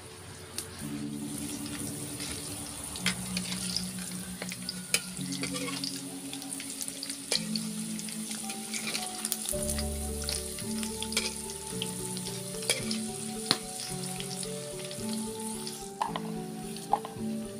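Hot oil sizzling steadily as battered pieces fry in a wok, with scattered clicks and scrapes of a metal spatula, under background music.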